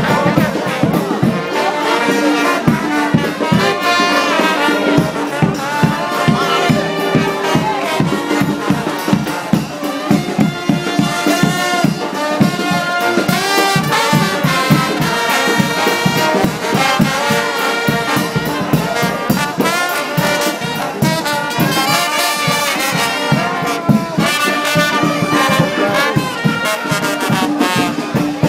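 A New Orleans brass band playing second-line music in the street, with trumpets and trombones carrying the melody over a steady beat.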